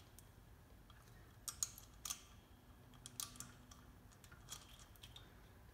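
A handful of faint, scattered clicks and taps of small metal parts being handled as an idler wheel is fitted onto a bicycle chain tensioner arm.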